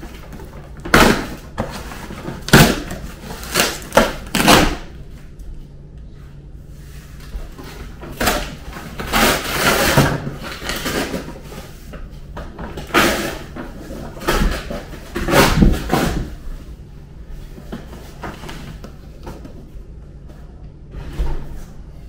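Cardboard shipping box being torn open by hand: a run of loud, irregular ripping, scraping and knocking noises, the longest tear about nine to ten seconds in.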